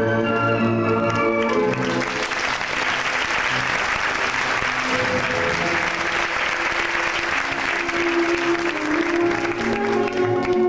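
An audience applauding over backing music of held, sustained chords. The clapping swells in about two seconds in and fades out near the end as the music comes back to the fore.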